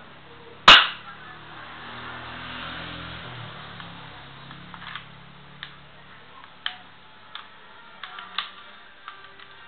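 CYMA P.817 airsoft pistol firing once, a single sharp crack about a second in, followed by a series of light clicks of the pistol's parts being handled and worked.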